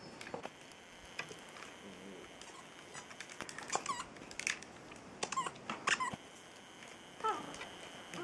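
Young puppies giving short, squeaky yips and whines while playing, scattered mostly through the second half.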